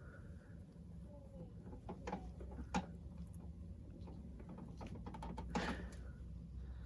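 Scattered light knocks and clicks of objects being handled, a few around two to three seconds in and a cluster about five and a half seconds in, over a low steady hum.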